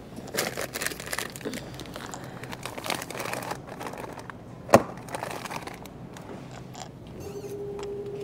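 Plastic grocery bags and packaging crinkling, with light knocks as groceries are handled at a checkout. There is one sharp click about halfway through, and a steady tone starts near the end.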